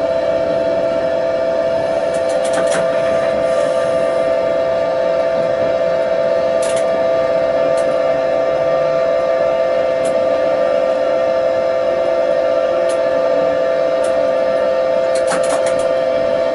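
Tatra T6A5 tram heard from the driver's cab while running through the streets: a loud, steady electrical whine that holds one pitch as the speed changes, over rolling rumble, with a few sharp clicks.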